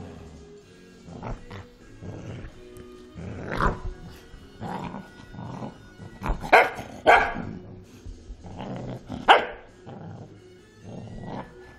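Cocker spaniel growling and barking in a rough play-fight with a person's hand, a run of short outbursts with the loudest barks about six to seven seconds in and again just after nine seconds.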